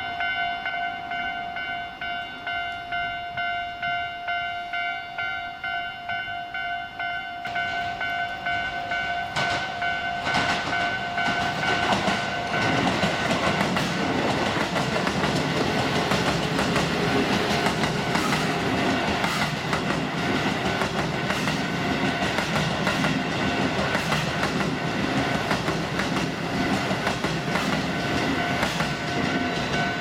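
Railway level-crossing warning bell ringing in a steady repeating pattern, then an electric commuter train on the Keio Line approaches and passes. Its wheels rumble and clatter over the rail joints from about eight seconds in and are loudest from about twelve seconds on, while the bell keeps ringing underneath.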